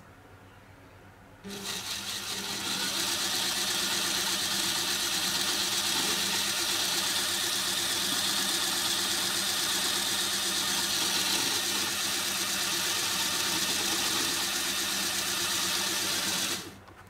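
Lego Technic electric motor driving a mechanism of plastic universal joints and axles, running with a steady whir. It starts about a second and a half in and stops shortly before the end.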